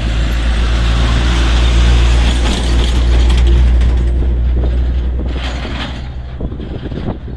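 Isuzu Giga truck's diesel engine passing close by, a deep rumble that swells over the first few seconds and fades as the truck moves away, with irregular knocks and rattles.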